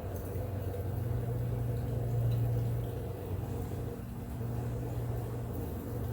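Gas forge burner running with a steady low rumble while it heats a knife blade.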